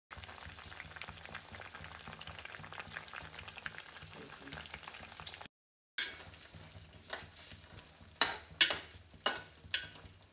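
Vegetables cooking in water in a metal pot, bubbling steadily: the boiling stage of a Kerala vegetable stew. After a cut, a metal ladle stirs the pot and clinks sharply against its side several times near the end.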